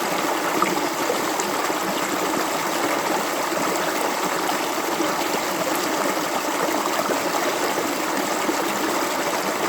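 Clear water flowing steadily over stones in a stream, a continuous even rush with small bubbling splashes throughout.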